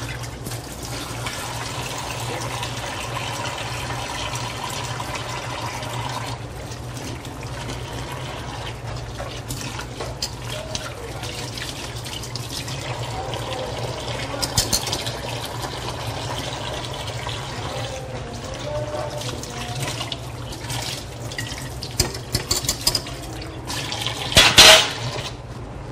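Kitchen tap running into a sink as something is rinsed, with light clinks and scrapes from a wire whisk in a pot. A brief loud noise comes near the end.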